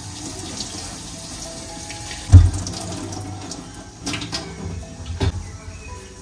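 Kitchen tap running into a stainless steel sink while a utensil and hands are rinsed. A loud knock comes about two and a half seconds in, and a few lighter knocks follow near the end as things are handled in the sink.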